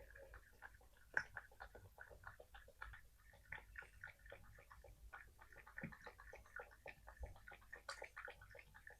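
A cat lapping water with its tongue: a quick, even run of soft wet laps, several a second, with one sharper click about a second in.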